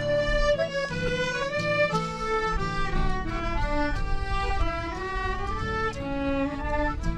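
Instrumental music: a fiddle playing a melody over accompaniment.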